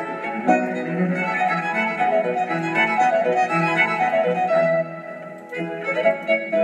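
Instrumental music led by a violin melody over other bowed strings, with a short lull about five seconds in before it picks up again.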